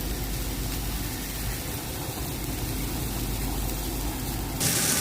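Steady mechanical drone and hiss from a nearby power plant, with a constant low hum underneath. Near the end a louder, brighter hiss cuts in suddenly.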